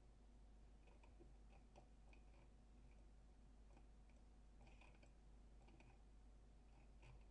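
Near silence with faint, irregular computer mouse clicks over a low steady hum.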